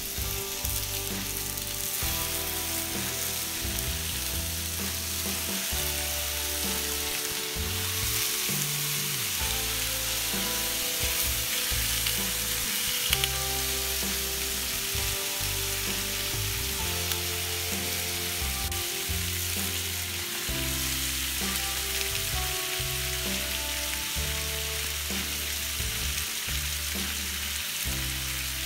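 Raw bacon strips sizzling and spitting as they are laid on a hot porcelain-enameled cast iron griddle on a propane gas grill, a steady hiss. Background music with low, changing notes plays underneath.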